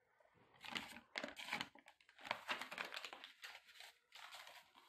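Faint rustling and crinkling with scattered clicks, in irregular clusters: hands handling a camshaft sensor's wiring connector while pushing back-probe needles into it.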